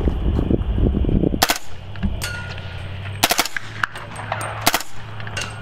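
Suppressed 300 Blackout short-barrel AR rifle firing single shots, a few sharp cracks spaced about a second or more apart, with a low rumble of wind on the microphone at the start.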